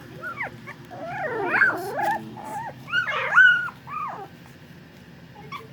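Young puppies whimpering and squealing: a run of short, high cries that rise and fall in pitch, several overlapping, then dying down for about the last second.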